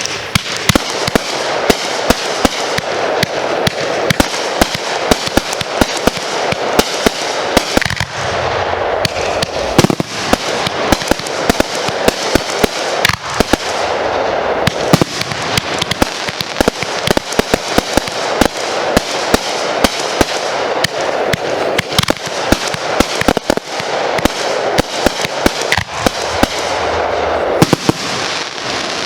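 Dense, continuous fireworks barrage: many overlapping bangs and crackles packed tightly together with no pause.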